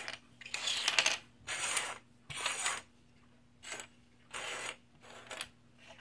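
Plastic Lego 2x2 bricks clattering against each other and the tabletop as they are set down and pushed into a pile, in about six short rattles.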